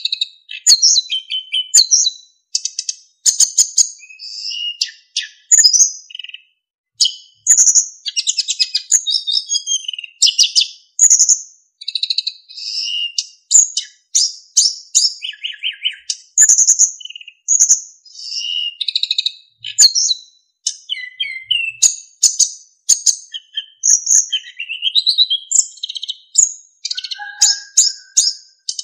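Sikatan emas, a flycatcher, singing in quick, high-pitched phrases of twittering fill-in notes and clear whistled notes, one phrase after another with short pauses.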